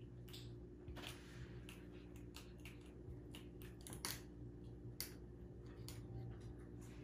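Irregular light clicks and taps of a small plastic toy knocking and skidding on a wooden floor as a cat bats at it, the sharpest two about four and five seconds in, over a faint steady hum.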